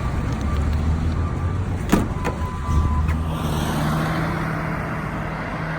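A vehicle driving on the road: steady engine hum and road noise, with a sharp click about two seconds in and louder tyre and road noise from about three seconds in.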